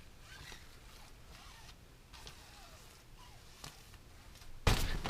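Faint rustling of nylon tent fabric. Near the end comes a sudden loud scuffle of the fabric, the sound of a cat pouncing on the tent wall where a foot presses against it.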